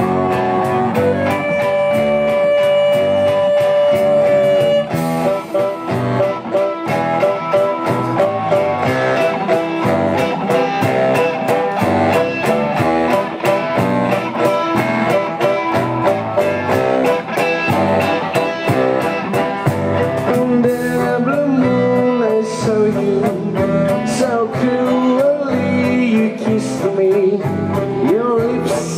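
Live band playing an instrumental passage: electric guitar and violin over a steady beat, with long held notes at the start and wavering melodic lines near the end.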